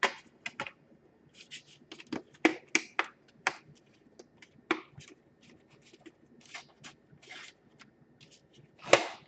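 Plastic case of a Dell Inspiron 15 5000 series laptop being pressed together by hand, a scattered run of short clicks and snaps from its clips seating, with a louder snap near the end.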